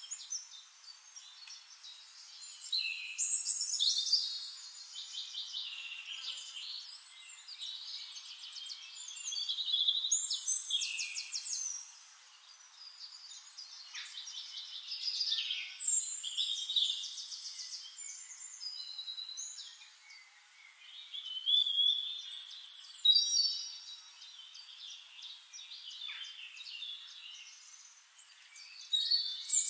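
Songbirds singing: bursts of fast, high trills every few seconds, with softer chirping between them.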